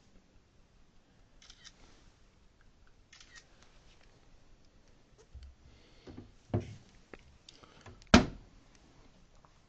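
Scattered clicks and knocks of handling in a small room, with a duller thud about six and a half seconds in and the loudest, sharp knock just after eight seconds.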